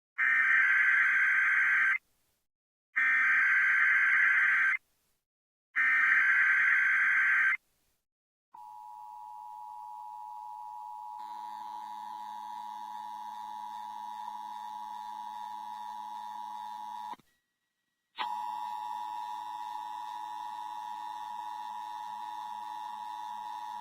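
Emergency Alert System SAME header: three warbling digital data bursts of about two seconds each with short gaps, marking the start of a monthly test alert. Then the EAS two-tone attention signal sounds as a steady dual tone, breaks off for about a second, and resumes.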